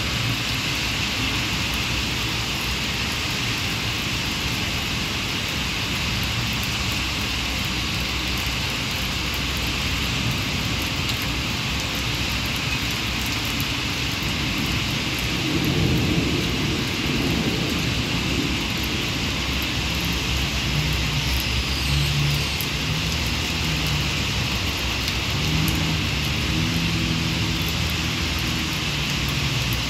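Heavy rain falling in a steady hiss, with a low rumble of thunder about halfway through. In the last several seconds a low droning hum comes and goes.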